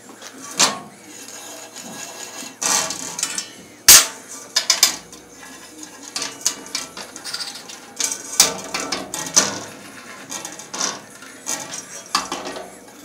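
Irregular metallic clinks and knocks as things are handled and set down on a large steel circular saw blade, with short scraping sounds between them; the loudest knock comes about four seconds in.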